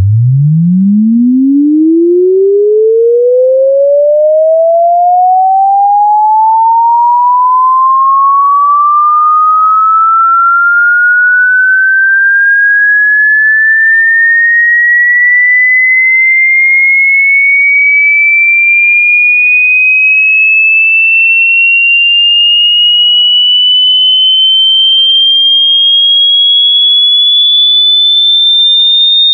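A loud, pure electronic sine-wave tone sweeping steadily upward in pitch, from a deep low hum to a high whistle. It climbs fast at first, then more slowly.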